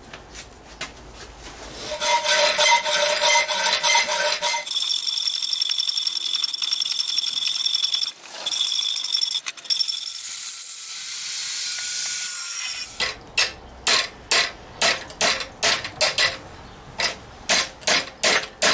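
A power tool working the metal of an exhaust: a whining run-up of a few seconds, then about eight seconds of loud hissing grind with a high whine, broken twice. After it comes a run of sharp taps, about three a second.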